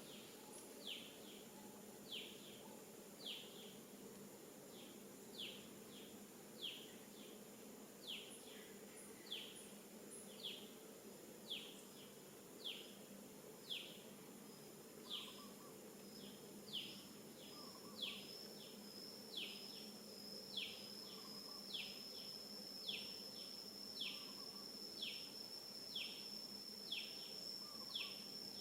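A bird repeats a short descending call about once a second, over faint outdoor background noise. A steady, high insect buzz joins about halfway through and continues.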